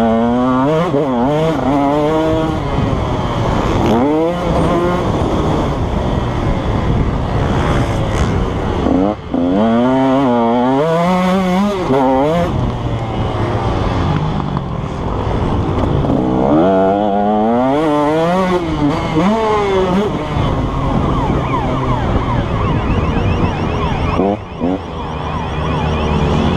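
KTM 150 SX two-stroke motocross engine revving up and backing off again and again, its pitch climbing and falling with the throttle. The sound dips briefly twice.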